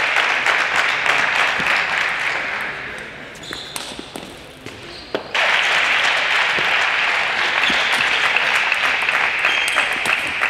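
Audience applause in an indoor hall, dying away about three seconds in to leave a few sharp taps of the table tennis ball, then starting up again suddenly just past halfway.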